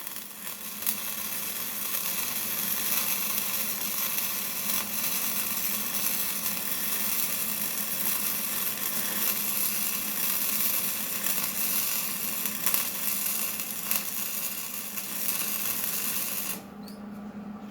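A power tool working on steel makes a steady, harsh hiss that starts abruptly and cuts off abruptly near the end.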